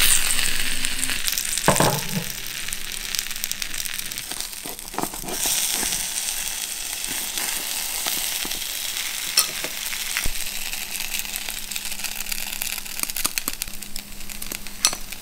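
Shengjian bao (pan-fried pork buns) sizzling and crackling in oil in an uncovered cast-iron skillet: the buns are cooked through and their bottoms are crisping now that the steaming water has boiled off. A knock about two seconds in, and a few scattered clicks.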